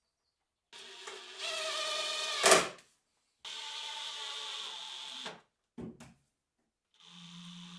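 Cordless drill-driver driving screws through a steel ball-bearing drawer slide into a plywood cabinet side. The motor whines in two runs, the first rising and ending in a sharp crack as the screw seats, then a short burst and a lower steady run near the end.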